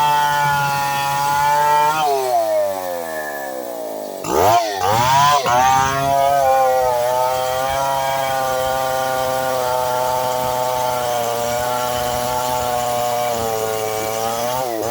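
Stihl two-stroke chainsaw engine running at high revs. Its pitch falls steeply about two seconds in, it is revved up and down sharply a few times, and then it holds a steady high speed.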